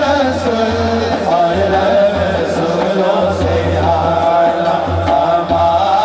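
Male voices singing a naat, an Urdu devotional song in praise of the Prophet, amplified through microphones, with a low hum that comes and goes beneath the voices.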